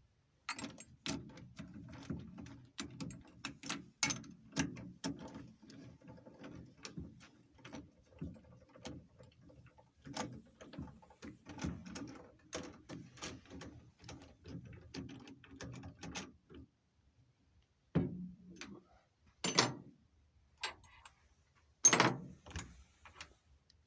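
Rapid, irregular metallic clicking and rattling of metal parts and tools being handled at a lathe for about sixteen seconds, then, after a short pause, three sharp knocks about two seconds apart.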